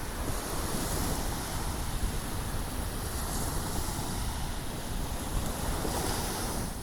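Sea surf washing steadily, with wind buffeting the microphone in a gusty low rumble.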